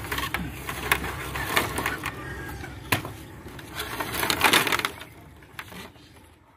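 Scattered light knocks and clicks, with some rustling, from hand work at the wall on bamboo scaffolding. The sound fades out near the end.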